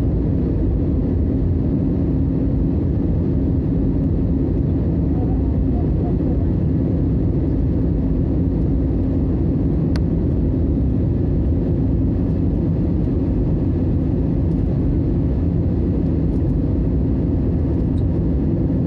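Steady low rumble of an airliner's jet engines and rushing air, heard from inside the passenger cabin on the approach to landing, with a steady hum under it and a single faint click about ten seconds in.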